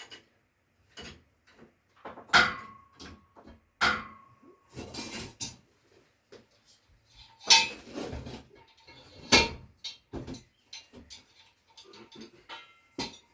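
Irregular metal clanks and knocks, steel on steel, a few of them leaving a short ringing note, with a brief scrape between them.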